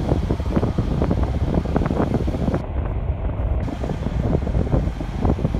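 Wind buffeting the microphone on the deck of a moving passenger ferry, over a steady low rumble from the ferry's engines.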